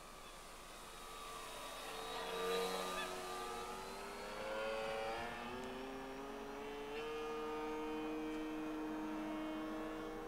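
Multiplex Mentor RC plane's electric motor and propeller whining as it passes low and fast, loudest about two and a half seconds in, with the pitch dropping as it goes by and moves off. Near seven seconds the motor note steps up and then holds steady as the plane climbs away.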